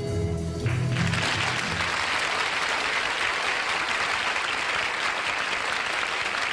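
A studio audience applauding, the clapping starting about a second in as the song's accompaniment ends on its last held notes.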